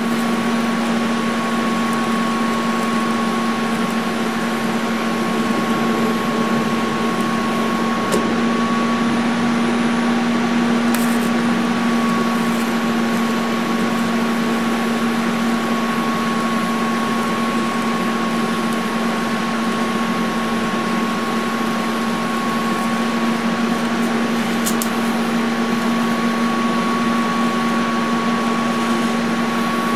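Lincoln TIG200 Squarewave TIG welding arc burning continuously while silicon bronze is built up on cast metal: a steady buzzing hum with a faint high tone and hiss, and a few faint ticks.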